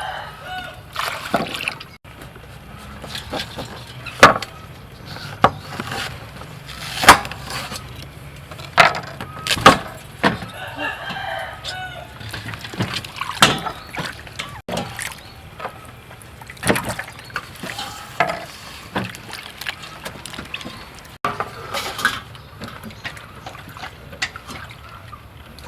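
Chickens calling, with a rooster crowing, mixed with irregular sharp knocks and clatters.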